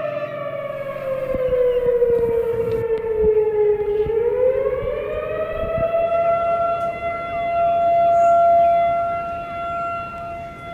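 Civil defense siren wailing: its tone falls in pitch for about four seconds, climbs back up over the next two, then holds steady until it starts to fall again near the end.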